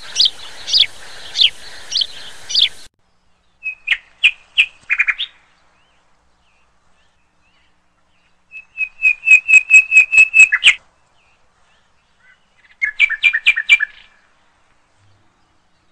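Birds calling in short bursts: a string of quick falling whistled notes, then clusters of rapid repeated chirps, the loudest a run of about ten fast notes near the middle, with silent gaps between the bursts.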